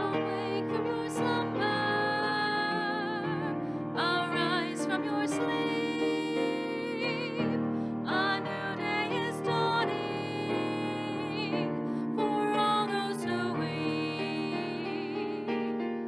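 Closing hymn after the Mass's dismissal: a voice singing held notes with a wavering vibrato over piano accompaniment.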